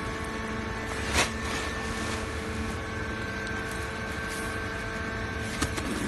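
Hydraulic aluminum-chip baler running with a steady hum of several fixed tones as the pressed block of aluminum turnings is pushed out of the press. There is one sharp metallic clank about a second in and a lighter click near the end.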